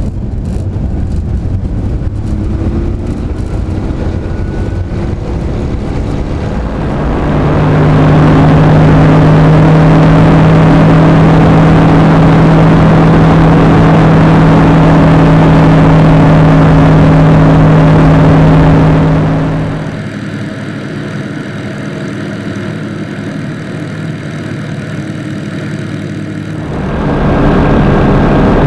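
Light-sport aircraft's propeller engine heard from inside the cabin, opening up about seven seconds in to a loud, steady full-power drone for the takeoff and climb. Near the end it drops to a quieter, thinner sound for several seconds, then comes back up.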